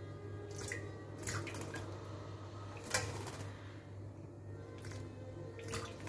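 A myna bathing in a shallow steel bowl of water: a scatter of short splashes and flicks of water, the sharpest about three seconds in, over a steady low hum.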